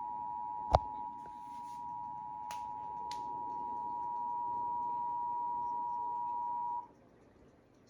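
Emergency Alert System two-tone attention signal (853 Hz and 960 Hz sounded together), a steady high dual tone that cuts off suddenly about seven seconds in, marking a Required Monthly Test. A sharp click is heard about a second in.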